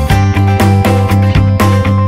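Instrumental background music with an even beat of about four strokes a second over a steady bass line.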